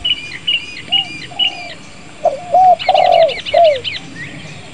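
Several birds calling at once: short arched whistled notes repeat every half second or so, with quick high chirping phrases above them. A fast run of about eight high notes comes about three seconds in.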